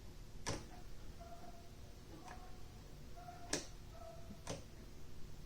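Hammond No. 12 typewriter mechanism being worked by hand: a few sharp metallic clicks, three of them louder, with short faint tones between them.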